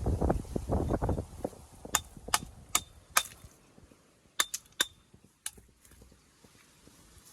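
Stones knocking and scraping as they are handled, then a series of sharp, ringing hammer taps on stone, about eight in all: four evenly spaced, then a quicker cluster.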